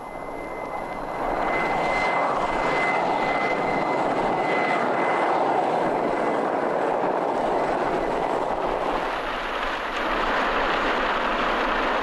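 Mi-2 helicopter running steadily, its turbines and rotor making a continuous noise with a thin high whine for the first few seconds. The noise dips briefly near the ten-second mark.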